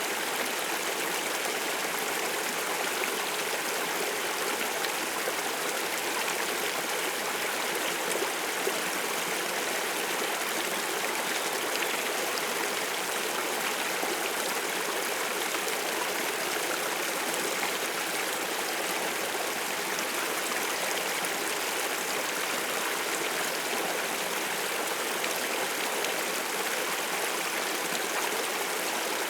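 Water stream flowing steadily: a constant, even rush and trickle of water, mostly in the middle and high range with little deep rumble.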